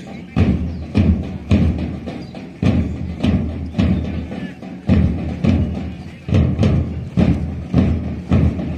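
Marching drum beating time for a march-past: heavy low drum strokes about every two-thirds of a second, with lighter strokes between them.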